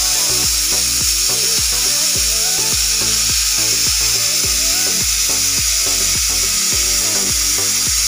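Pressure cooker whistling on a gas stove: steam jets out under the weight valve in one loud, steady, high hiss. Background music with a steady beat plays underneath.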